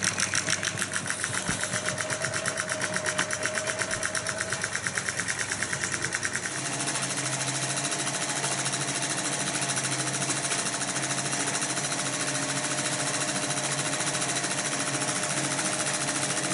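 Pathescope 200B 9.5mm film projector running film at slow speed, its intermittent claw mechanism clattering in a fast, even rhythm. About six seconds in the clatter becomes denser and steadier.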